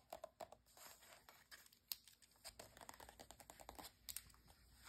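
Long acrylic fingernails tapping and scratching on glossy magazine pages: quiet, quick, irregular clicks with a light paper rustle, dying away near the end.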